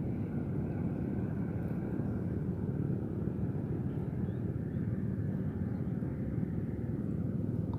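A steady low rumbling noise with no distinct events.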